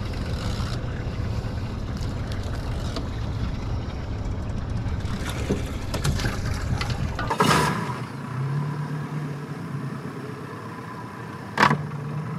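A dense low rumble for the first seven seconds. After a cut, the steady hum of a Yamaha 115 outboard motor idling, with a sharp click near the end.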